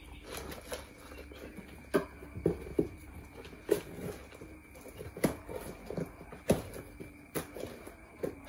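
Cardboard boxes holding live chicks being handled, with irregular knocks and short scratching sounds on the cardboard about once or twice a second.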